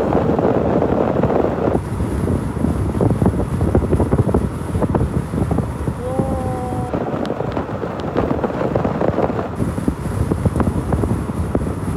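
Wind buffeting the microphone through an open car window while driving, over the rumble of the moving car. A short pitched sound cuts through briefly about six seconds in.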